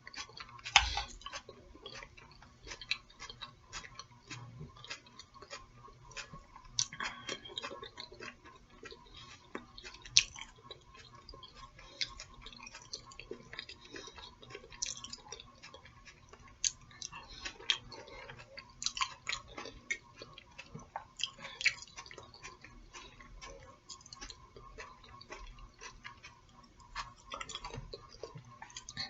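Close-miked chewing and mouth sounds of a person eating: irregular small wet clicks and smacks, some louder than others, with no talking.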